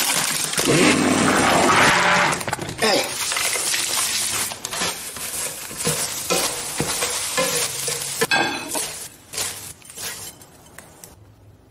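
A loud clatter and churn as whole eggs are dropped into a glass blender, then an egg mixture sizzling as it fries in a hot pan while a spatula scrapes and stirs it. The sizzling fades near the end.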